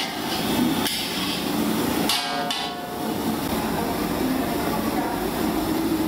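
Sharp knocks, a few at a time, over a steady busy background noise.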